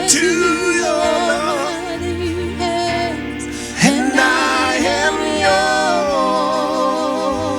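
Live gospel worship music: a singer holds long, wavering notes without clear words over sustained keyboard chords, starting a new phrase about four seconds in.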